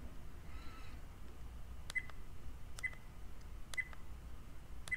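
Button presses on a Chortau BT007 dash cam as its settings menu is stepped through. Each press gives a short click with a brief high beep, four times about a second apart, starting about two seconds in.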